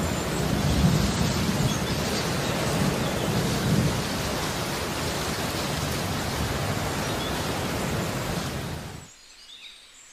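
Rain with thunder: a steady hiss with low rumbling underneath, fading out about nine seconds in.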